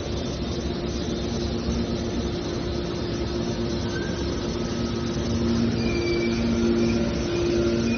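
Hydraulic scrap metal baler press running: a steady machine hum over a noisy rumble, getting somewhat louder about halfway through.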